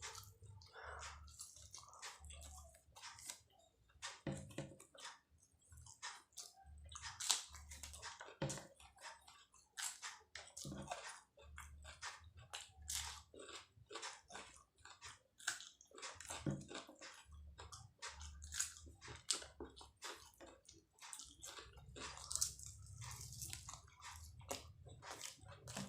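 A person chewing and biting martabak telur (fried egg-filled pastry) with raw bird's-eye chillies close to the microphone: a dense run of short, sharp mouth clicks with a few louder bites.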